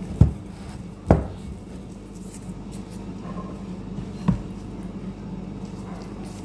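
Three dull knocks on the kitchen worktop or baking tray as bread dough is handled and shaped, two close together near the start and one a few seconds later, over a steady low hum.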